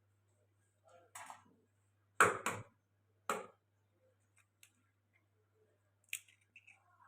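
Kitchen clatter: about five sharp, irregularly spaced knocks of utensils during food preparation, the loudest a double knock a little over two seconds in, with smaller ticks between them and a faint steady low hum underneath.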